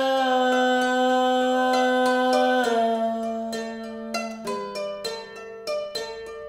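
Kora being plucked in a steady repeating pattern. Over the first few seconds a man holds one long sung note that steps down in pitch, then the kora goes on alone, each plucked note ringing out and dying away.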